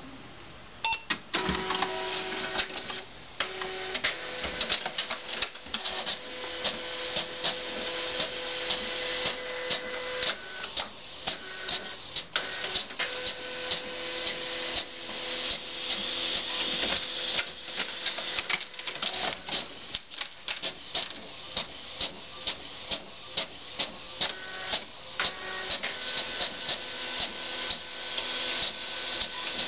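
Desktop fax-printer printing a page: a steady mechanical whir with regular sharp clicks about once a second, starting about a second in.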